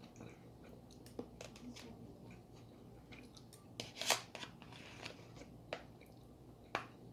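Eating sounds from a meal of penne pasta: a scattering of small clicks and clinks of utensil against plate, the sharpest a little after four seconds in and another near the end.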